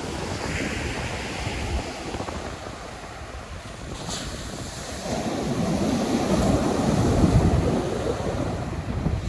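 Atlantic surf breaking on the beach, with wind buffeting the phone's microphone. A wave rushes in louder past the middle and eases off near the end.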